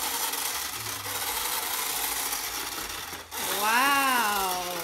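Battery-powered toy power tool on a Black+Decker children's workbench running with a steady electric whirring sound effect for about three seconds, then stopping. A voice follows with one drawn-out call that rises and falls in pitch.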